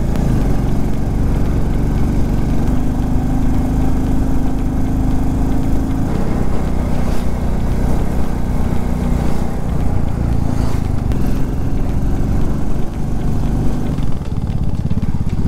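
Royal Enfield Classic 350's single-cylinder engine running steadily under way. The engine note rises about three seconds in and falls back about six seconds in.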